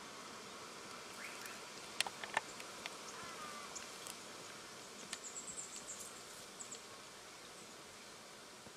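Outdoor ambience with insects buzzing over a steady hiss, a few short high bird chirps, and two sharp snaps about two seconds in, followed by a run of quick high ticks a few seconds later.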